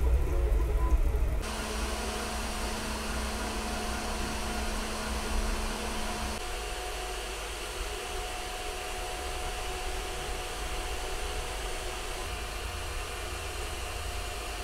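Wuxn WXR 3D printer printing, its cooling fans whirring in a steady hiss with faint steady hums from the machine. A louder low rumble cuts off about a second and a half in.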